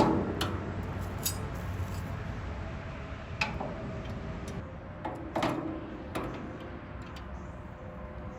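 Hand tools and loosened bolts clinking against the metal chipper housing during blade removal: one sharp loud clank at the start, then scattered lighter clinks and taps.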